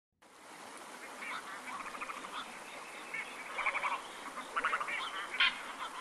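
Black-crowned night herons calling: many short, harsh calls repeated and overlapping, as from several birds, growing louder over the few seconds.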